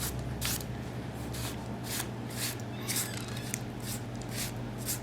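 Hand broom sweeping scraped-out grout debris from the opening around a vinyl tile, in short brisk strokes about twice a second, over a steady low hum.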